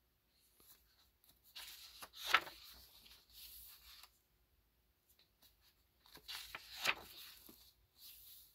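Pages of a stiff paper accordion postcard booklet being turned and flexed, rustling in two bursts, about two seconds in and again about six seconds in.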